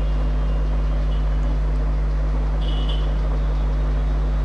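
Steady low electrical hum, like a mains-powered motor or transformer, with a short high chirp a little past halfway.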